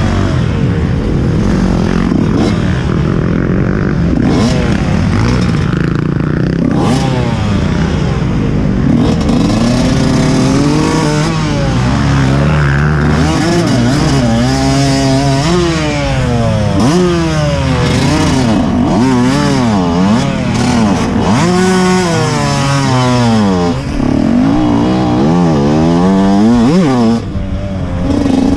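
TM Racing 125 MX two-stroke motocross bike engine under hard riding, its pitch rising and dropping again and again as the throttle is opened and shut and the gears are changed, with many quick rev rises in the second half. Heard from a helmet-mounted camera.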